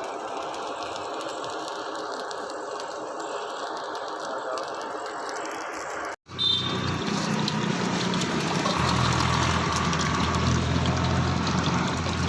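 Workshop machinery running steadily. The sound changes abruptly about six seconds in, and after that a motor hums low and steady.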